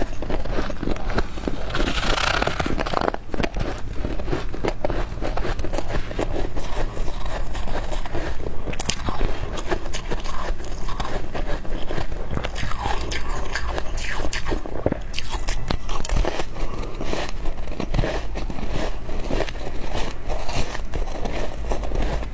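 Close-miked biting and chewing of powdery freezer frost, a dense, continuous crunching and crackling, with a louder crunch about two seconds in.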